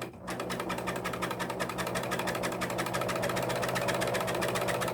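Husqvarna Viking Huskylock 910 serger running at a steady speed, stitching through fabric with a fast, even rhythm of needle and knife strokes over a steady motor hum. It dips briefly just after the start, then runs on evenly.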